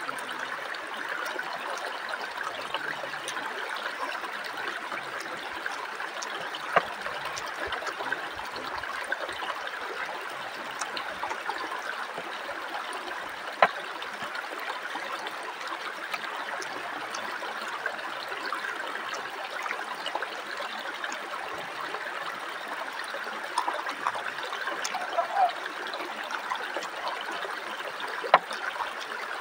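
Shallow river flowing over rocks, a steady rushing of water, with a few sharp clicks standing out above it now and then.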